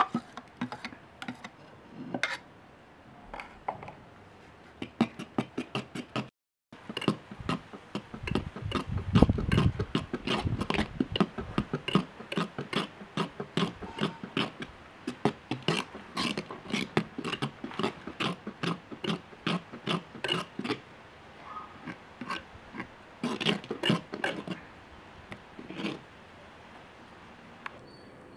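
Steel spoon clinking and scraping: first scraping thick green paste out of a steel mixer jar, then, after a short break, stirring dosa batter in a clay pot with many rapid clicks against the pot's side.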